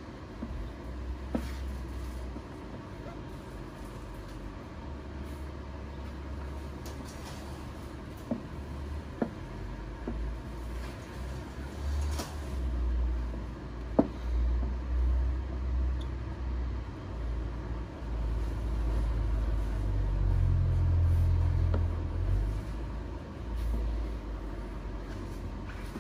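Plastic squeegee stroking and tapping on wet protective film over a car headlight, with a few sharp clicks, under a loud, uneven low rumble that swells near the end.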